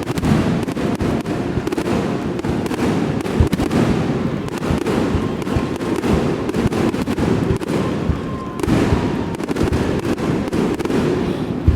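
Aerial fireworks display: a dense, unbroken barrage of booms and cracking bursts, with a sharper crack about three and a half seconds in and another near the end.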